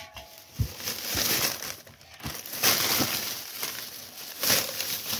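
Plastic bag crinkling and rustling as it is handled right against the microphone, with a few low thumps.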